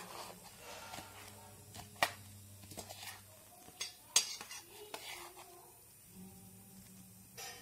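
Metal spoon clinking and scraping against a stainless steel plate while dry puffed rice, sev and chopped onion are stirred together. There are sharp clinks every second or two, the loudest about two and four seconds in.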